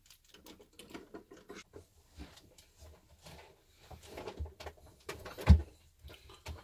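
Small parts of a WPL B-36 RC model truck being handled by hand: scattered light clicks and rattles, with one louder knock about five and a half seconds in.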